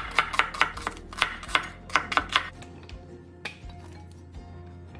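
Cleaver chopping red onion on a cutting board, quick even strokes about four or five a second, stopping about halfway through; a single light knock follows a second later.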